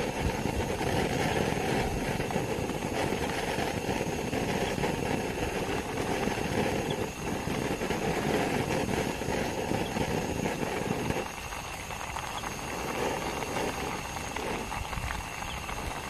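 Portable butane canister stove burner running steadily under a pot of noodle soup at a rolling boil, the flame noise mixed with bubbling. The sound thins a little about eleven seconds in.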